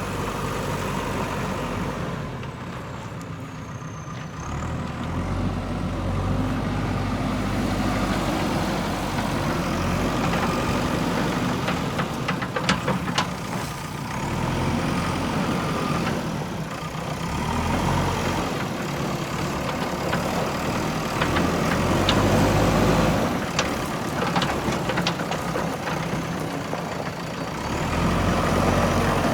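JCB 3DX backhoe loader's diesel engine running and working, its pitch and loudness rising and falling as it takes load. A few sharp knocks and clanks come about midway and again later.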